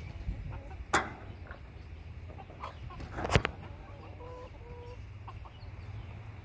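Hens clucking softly, with two short pitched notes about four seconds in, over a steady low rumble. Two sharp thumps stand out, one about a second in and one about three and a half seconds in.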